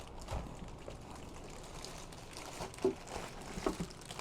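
Packaging being handled as parts are lifted out of a cardboard box: scattered light knocks and rustles, the loudest knock about three seconds in.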